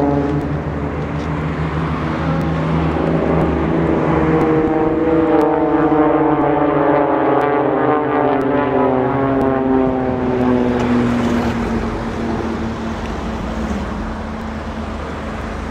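A formation of propeller aerobatic aircraft flying past, their engine and propeller drone falling slowly in pitch as they go by. It is loudest in the middle and fades toward the end.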